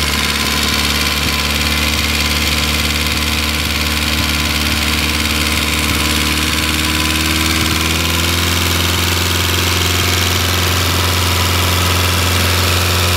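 D-Motor four-cylinder flathead, liquid-cooled, direct-drive aircraft engine running steadily at idle, turning a demonstration disc instead of a propeller. Its speed picks up slightly a little past halfway.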